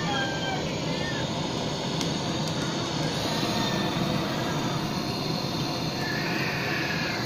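Handheld butane blowtorch flame blowing steadily into lumps of charcoal in a clay charcoal stove, lighting the coals: an even rushing noise that holds steady throughout.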